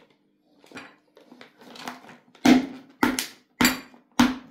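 Hot green chili peppers being packed by hand into a large plastic jar: soft rustling at first, then about five sharp knocks in quick succession from about halfway through as the peppers are pushed down and the jar is handled.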